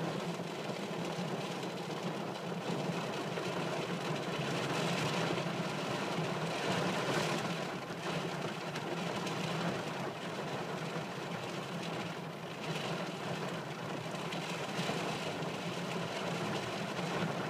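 Heavy rain drumming on a car's roof and windshield, heard from inside the cabin as a steady hiss with a low hum beneath it.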